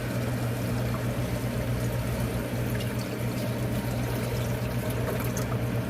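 Water poured steadily from a plastic bottle into the ice maker's drain bucket, over a constant low hum.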